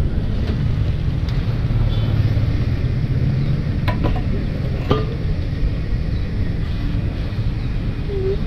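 A motorcycle idling with a steady low rumble. Two sharp metallic clicks come about four and five seconds in as the fuel nozzle goes into the filler neck.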